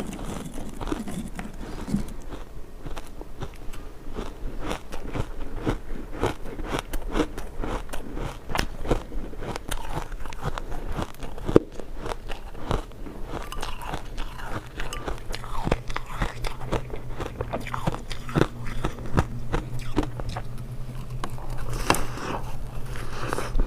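Close-miked biting and chewing of hard refrozen ice chunks: a dense, irregular run of sharp crunches and cracks.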